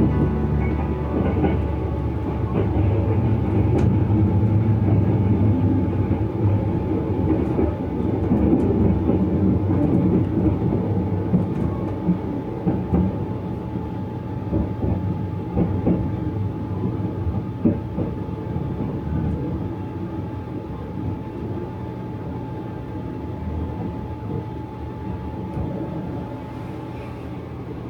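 Sunrise Izumo 285-series electric sleeper train running on the rails: a steady rumble with scattered clicks of the wheels, gradually getting quieter toward the end.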